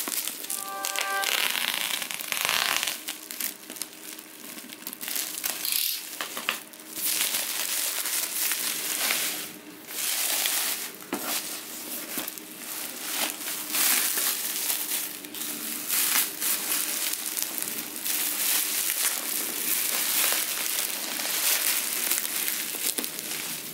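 Plastic bubble wrap being handled and pulled off a cardboard box: continuous crinkling and crackling that swells and fades in uneven waves.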